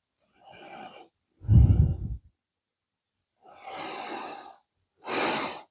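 A person breathing out close to the microphone: four separate breaths or sighs, the second with a low voiced murmur in it.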